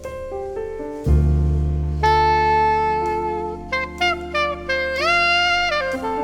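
Instrumental music: a lead melody of held and stepping notes, with one note sliding up about five seconds in, over a deep bass that comes in about a second in.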